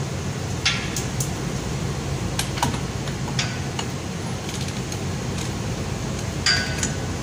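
Wrench and socket clinking on the steel bolts of a pipe flange: a handful of sharp metallic clicks, the loudest, with a short ring, about six and a half seconds in. A steady low machinery hum runs underneath.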